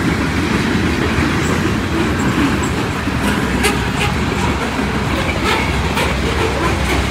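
Loaded coal hopper cars of a Union Pacific freight train rolling past, a steady rumble of wheels on rail. Several sharp clicks of the wheels come through from about halfway on.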